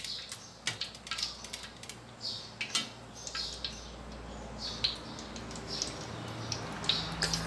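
Hot cooking oil crackling and popping in a stainless steel wok. About five to six seconds in, a slice of minced-pork-topped bread goes into the oil and a steadier sizzle of frying sets in under the pops.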